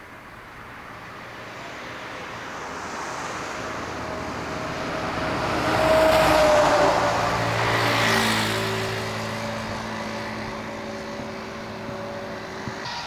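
A truck driving past: engine and tyre noise build to a peak about six seconds in, then ease off while a steady engine hum carries on.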